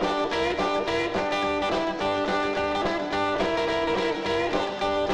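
Music: the instrumental break of a song, a guitar solo over a backing band with a steady beat.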